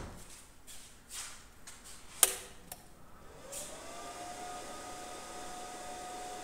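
A sharp knock about two seconds in, then a click and a portable welding machine's cooling fan spinning up with a rising whine that settles into a steady hum: the welder has been switched on.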